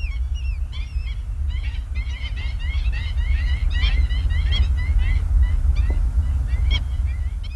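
A flock of birds calling. At first there is a run of evenly spaced, arched high calls, about three a second. From about a second and a half in, many short high calls overlap, and they thin out near the end. A steady low rumble runs underneath.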